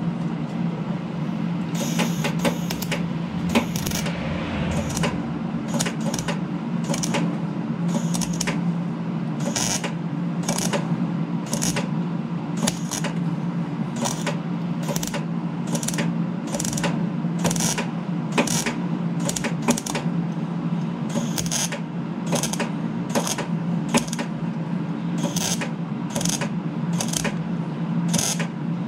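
MIG welder tack-welding a cracked thin-steel chainsaw muffler in short arc bursts, each a brief crackle, about one a second, over a steady low hum.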